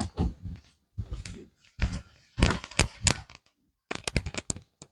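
A run of irregular rustles and clicks close to the microphone, like handling noise, in several clusters with short gaps between them.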